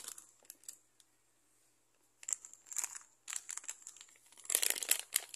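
Plastic sachet of cream of mushroom soup mix crinkling as it is handled, in crackly bursts right at the start, about two to three seconds in, and louder near the end.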